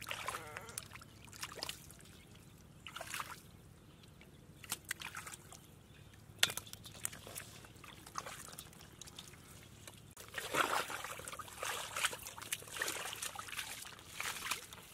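Hands splashing and sloshing in shallow muddy water while catching catfish, in irregular bursts, busier for the last few seconds.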